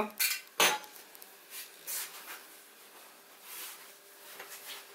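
Two sharp knocks of kitchenware being set aside in the first second, then faint rustling and handling noises with a few light ticks near the end.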